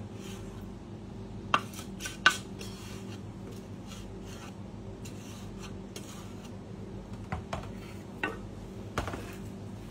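A wooden spatula scrapes ground hazelnut dough out of a stainless steel food-processor jug into a ceramic bowl. There are scattered sharp knocks of utensil on jug and bowl, the loudest about two seconds in, and a few more near the end.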